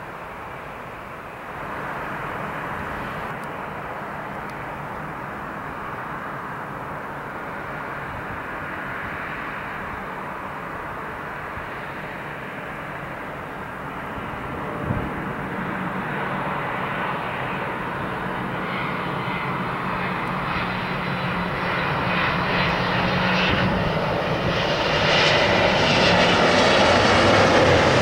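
British Airways Boeing 777-236ER's twin jet engines on final approach, a steady rumble that grows louder as the airliner draws near and passes by. Over the last several seconds a higher whine builds on top of the rumble.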